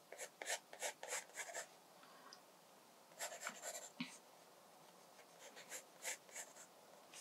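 Pencil sketching on watercolour sketchbook paper: quick short strokes in three bursts, with brief pauses between them.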